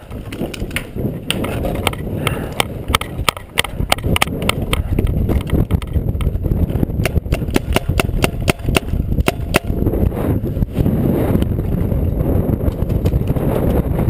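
A fast, irregular run of sharp cracks, densest in the middle and thinning out near the end, over a low rumble of wind on the microphone.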